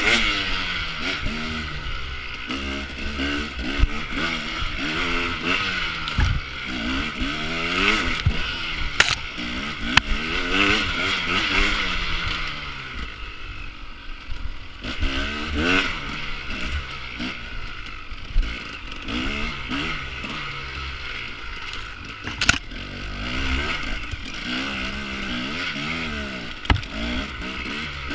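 Enduro dirt-bike engine revving up and down over and over as it is ridden off-road, with occasional sharp knocks and clatter.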